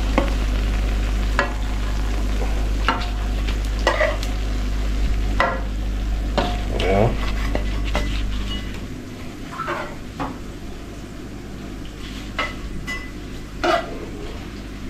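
Fritters frying in hot oil in a nonstick pan: a steady sizzle, with a metal spatula scraping and knocking every second or two as they are lifted out. The sizzle drops noticeably quieter about two-thirds of the way through.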